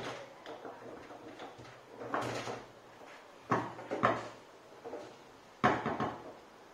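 Foosball ball being struck by the plastic player figures and knocking about a Fireball foosball table, with the rods clacking: a string of sharp, unevenly spaced knocks.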